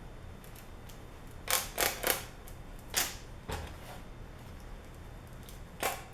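A handful of short scratchy rustles and clicks of plastic packaging being handled while a tear-off tape strip is pulled out of the GoPro Hero 3 box, the loudest cluster about a second and a half to two seconds in and another near the end.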